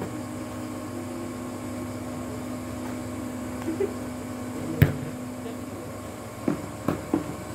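A sharp smack of a shuttlecock being struck about five seconds in, over a steady low hum. A few softer knocks follow near the end.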